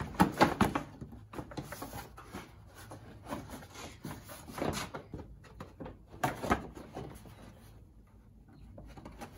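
Plastic fender of a Honda ATV being slid and pressed back into place: several clusters of clatter and knocks, the loudest right at the start and about six and a half seconds in, with quieter handling noise between and toward the end.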